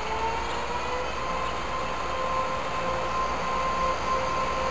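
A passenger train approaches along the station track, running with a rising rumble. Over it sounds a steady high tone that slides up a little in the first second and then holds, growing louder as the train draws near.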